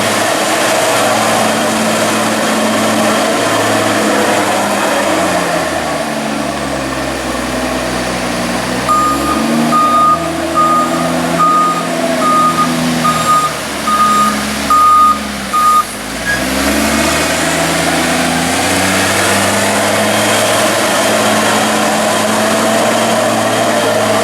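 JCB bucket machine's engine working as it rolls back and forth over a maize silage clamp to compact it, the engine note rising and falling. Midway a reversing alarm beeps about ten times, roughly one and a half beeps a second, while the machine backs up.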